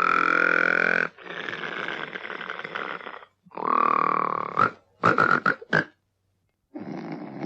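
Splash Mountain's Br'er Bear snoring, a cartoon bear's snore loop: a long snore in, rising slightly in pitch, a longer breathy snore out, another snore in, then four quick whistling snorts. After a pause of about a second the next snore begins near the end.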